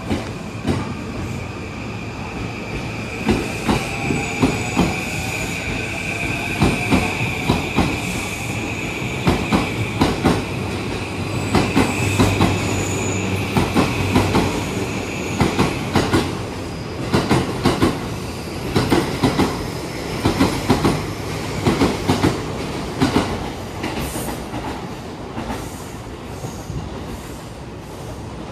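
JR East E235 series 1000 subseries electric train departing: the traction inverter and motors whine, with faint tones rising in pitch as it starts to accelerate over a steady high tone, while the wheels clack over rail joints in repeated pairs as the cars pass. The sound fades over the last few seconds as the train pulls away.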